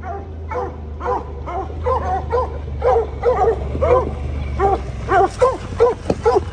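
Several hunting hounds in the back of a side-by-side UTV barking over and over, about two to three calls a second, with the UTV's engine running underneath as a steady low hum.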